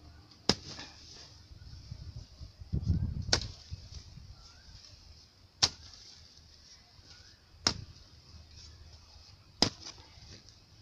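A long-handled digging hoe striking hard dry ground five times, one sharp blow about every two seconds, with a brief low rumble just before the second blow.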